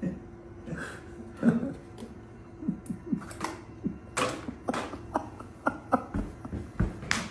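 A cat nosing and pushing a small bag of food around its bowl stand: irregular crinkles, taps and knocks, a dozen or so, with a couple of deeper thumps near the end.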